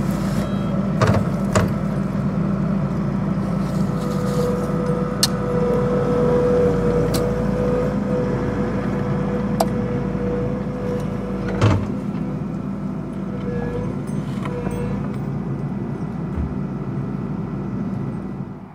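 Engine of a fence post-driver rig running steadily, with a steady high tone for several seconds in the middle and a few sharp knocks.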